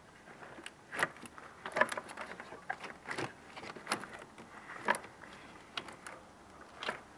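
Engine-bay wiring harness in black plastic loom being grabbed, pulled and bent by hand, giving irregular clicks, rustles and scrapes about once a second.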